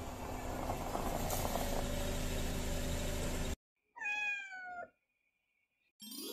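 A single cat meow about four seconds in, sliding down in pitch, after a few seconds of steady outdoor noise with a low hum that cuts off abruptly. A rising chime starts near the end.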